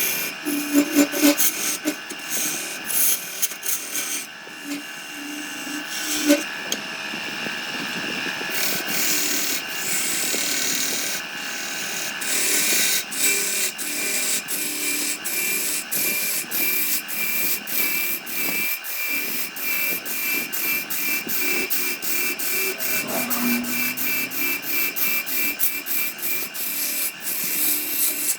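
Wood being worked with a hand tool in quick, regular rasping strokes, about two to three a second, that settle into an even rhythm in the second half.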